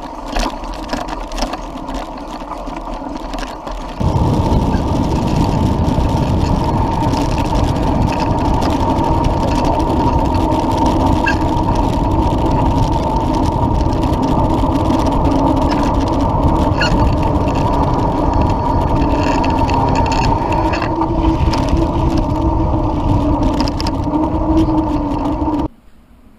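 Mountain bike riding on a dirt singletrack, with rattles and clicks from the bike and trail. About four seconds in, it gives way to a loud, steady rush of wind buffeting the camera microphone along with tyre hum as the bike runs fast down a forest road, cutting off abruptly near the end.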